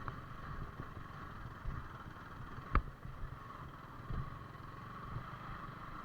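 Yamaha R15 V4's 155 cc single-cylinder engine running at low speed as the motorcycle crawls over a rough, muddy track. There is one sharp knock about three seconds in.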